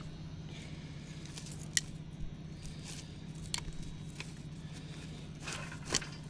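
Scattered sharp snaps and rustles of weeds and brush being pulled and handled by hand, a few a second near the end, over a steady low hum.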